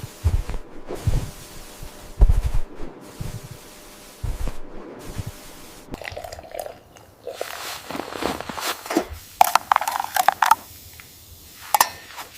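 Irregular low thumps, then crunching and crackling rustles about halfway through.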